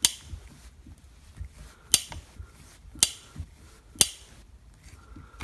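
Sharp metallic clicks, about one a second, four or five in all, as the screw of a hand-cranked roll pin pusher is slowly turned to press a steel roll pin into the trigger guard ear of an AR-15 lower receiver.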